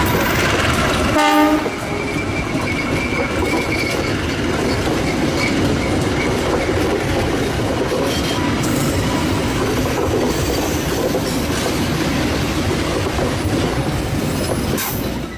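Train passing close by, a continuous loud rumble and clatter of wheels on the rails. About a second in comes a brief horn note, and a thin high wheel squeal sounds around three to four seconds in.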